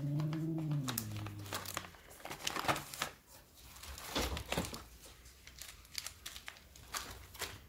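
Plastic and foil cat-food packaging crinkling and rustling as it is handled and moved around in a cardboard box, with scattered clicks and knocks. A low, drawn-out voice-like sound fades out over the first two seconds.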